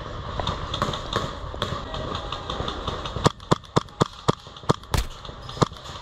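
Airsoft gun firing a quick string of about eight single shots, roughly four a second, starting about halfway through, with one louder crack near the end; before that, low rustling.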